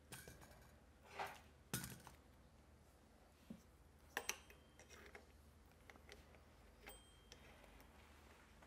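Faint, scattered clicks and clinks of small plastic and metal parts being handled as the throttle of a Xiaomi M365 scooter is worked off the handlebar, with a quick double click about four seconds in.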